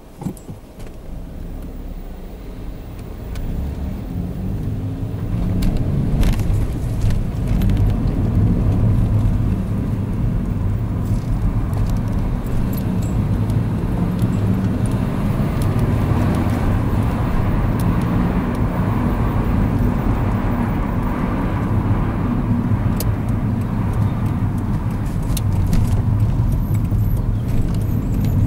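Inside an Opel Astra coupé pulling away from a standstill: engine and tyre noise build over the first six seconds, then settle into a steady low road rumble at speed. A few light clicks and rattles come from the cabin.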